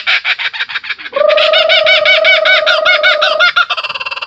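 Laughing kookaburra giving its laughing call: a long run of rapid, repeated notes, loudest in the middle and easing into a fainter, quicker chatter near the end.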